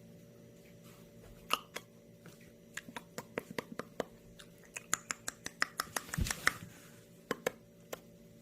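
Kittens pawing and clawing at a cardboard box: irregular sharp taps and scratches, several a second, starting about a second and a half in, with one duller thump a little past six seconds.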